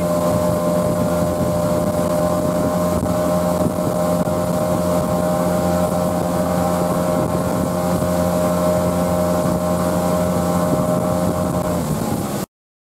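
Towboat motor running steadily at towing speed, with the rush of water and wind buffeting the microphone. The sound cuts off abruptly just before the end.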